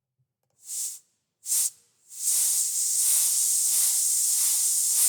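Rocket sound effect: two short hissing spurts, then a loud, steady hiss that starts about two seconds in.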